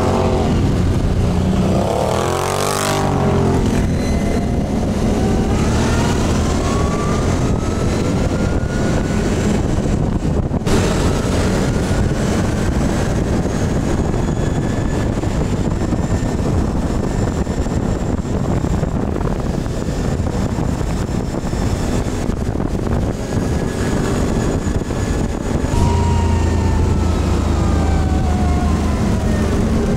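Quad bike (ATV) engines running, one steady close by while others drive past, their pitch sweeping up and then down as they go by, about two to three seconds in and again near the end.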